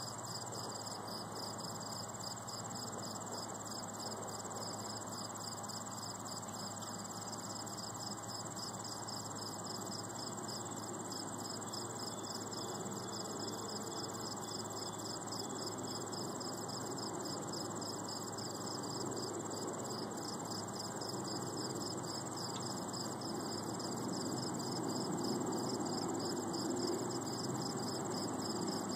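Insects chirping in a steady chorus: a fast, evenly pulsing high chirp over a continuous higher trill. A broad low background noise grows a little louder near the end.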